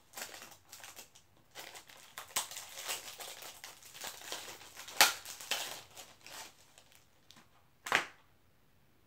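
Plastic packaging crinkling and rustling as it is handled and pulled open. Two sharp snaps stand out, the loudest about five seconds in and another near the end.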